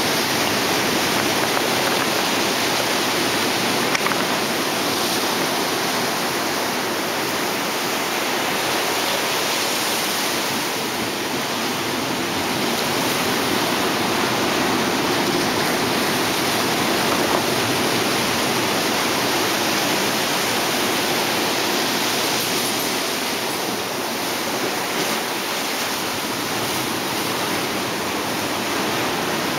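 Ocean surf washing among shoreline rocks: a steady rushing hiss that swells and eases slightly.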